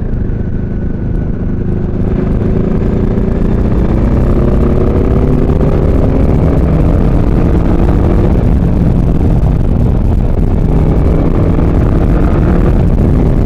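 Motorcycle engine pulling up in revs as the bike gathers speed over the first several seconds, then running at a fairly steady cruising pitch.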